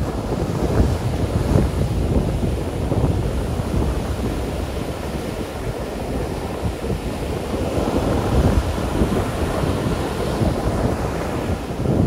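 Ocean surf from a choppy wind swell breaking and washing up the sand, with wind buffeting the microphone.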